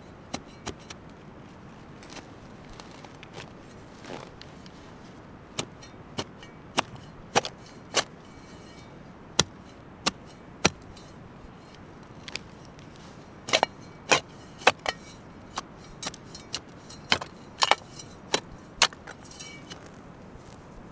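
Folding steel shovel chopping into stony turf: a string of sharp, irregular strikes, coming thicker in the second half.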